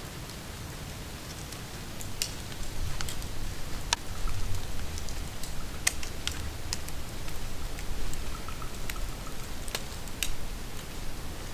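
Gusty wind buffeting the microphone, a low rumble that swells about two seconds in, with scattered sharp light ticks at irregular intervals.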